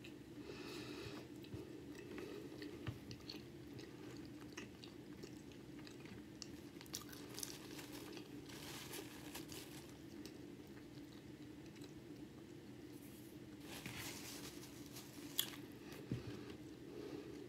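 Close-miked chewing of a chili cheese hot dog in a soft bun: quiet mouth noises in short bursts, about a second in, around eight seconds and around fourteen seconds, with a sharp click near the end, over a steady low hum.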